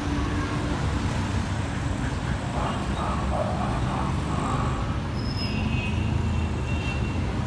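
Steady road traffic rumble from a busy street.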